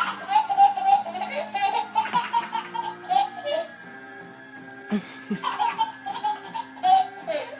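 A toddler laughing in a string of high-pitched bursts, pausing for a couple of seconds midway and then laughing again, over background music.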